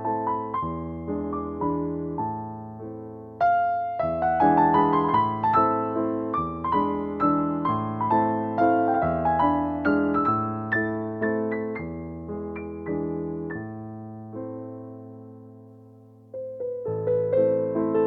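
Background piano music: a slow melody of struck notes over low chords. Near the end a phrase fades away on a long held chord, and a new phrase starts a couple of seconds later.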